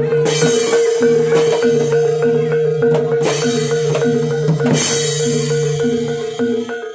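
Barongan dance accompaniment music: drumming and struck tuned metal percussion in a steady repeating pattern over a held note, with bright crashes about three times.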